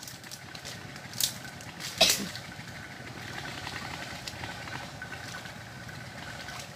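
Hands sloshing through shallow muddy ditch water while feeling for fish, with two sharp splashes about one and two seconds in, the second the loudest. A steady low engine hum runs underneath.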